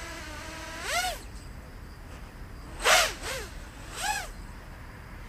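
Racing quadcopter's brushless motors and Master Airscrew three-blade propellers whining, sweeping up in pitch about a second in, then two short throttle punches near three and four seconds whose pitch rises and falls.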